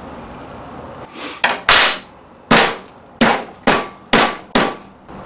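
A run of about eight sharp knocks on metal, roughly two a second, starting about a second and a half in, each with a short ringing tail.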